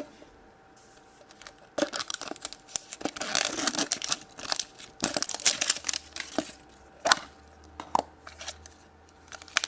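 Plastic wrapping crinkling and tearing as a plastic surprise egg is unwrapped and opened, starting about two seconds in, with a few separate sharp plastic clicks later on.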